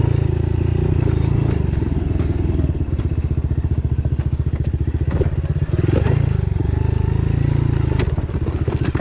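Honda CRF110F pit bike's small single-cylinder four-stroke engine running at fairly steady revs while riding a rocky dirt trail. Now and then a knock or clatter comes from the bike going over rocks and ruts.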